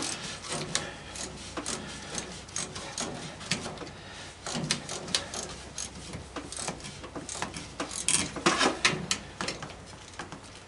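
Irregular clicks, taps and clatter of hand tools working on washing machine parts, with louder bunches of knocks near the middle and toward the end.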